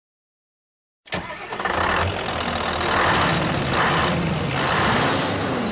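A truck engine starts suddenly about a second in and runs, its revs rising and falling several times.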